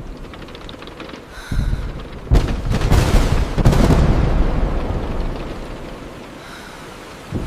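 Steady rain on a car's windshield with a thunderclap: a low rumble builds about a second and a half in, breaks into a few sharp cracks, then rolls away over the next few seconds.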